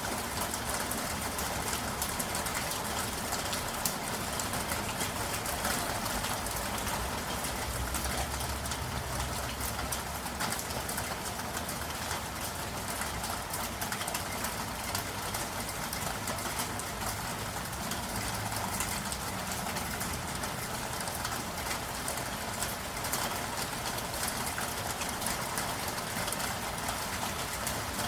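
Steady rain falling on a city street, a dense hiss of many small drops, with a low traffic rumble that swells about eight seconds in and fades after a few seconds.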